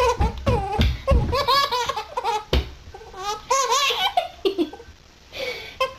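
Baby laughing in a run of repeated high-pitched bursts, with a short pause near the end before one more laugh.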